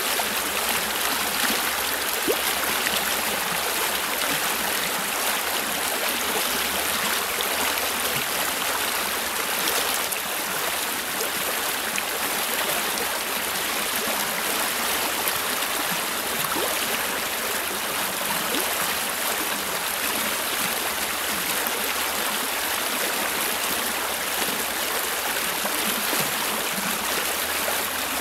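Shallow, fast-flowing river rushing steadily over rocks and riffles, a continuous, even hiss of moving water.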